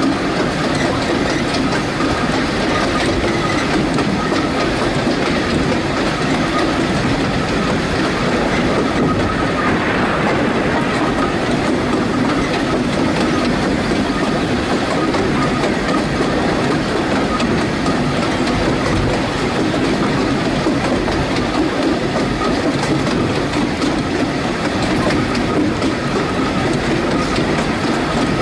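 Narrow-gauge train carriage running along the track, heard from an open carriage window: a steady rumble and rattle of the wheels on the rails, with a clickety-clack over the rail joints.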